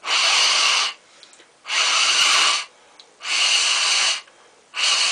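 Four hard blows of breath through a foil-covered hookah bowl, each a rushing hiss of air just under a second long with short pauses between. The blows purge stale smoke from a bowl whose tobacco has burnt and turned harsh.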